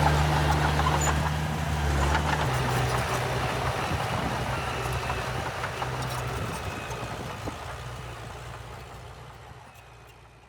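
Heavy earthmoving machine's diesel engine running steadily with a low hum. It drops in level about two seconds in, then fades out gradually.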